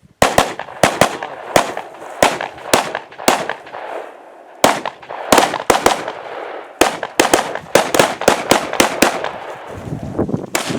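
Rifle shots fired in quick strings, often in close pairs, about two dozen in all with a short pause about four seconds in; each shot echoes, and the echo hangs between them.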